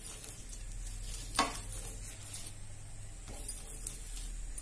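Light sizzling of oil on a hot non-stick tawa as a metal spoon spreads oil over the top of a stuffed paratha, with a few short clicks of the spoon against it.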